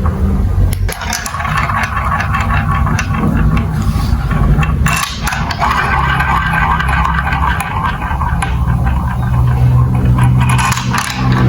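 Marbles rolling and clattering through a plastic building-block marble run, a continuous rumble with many small clicks and rattles.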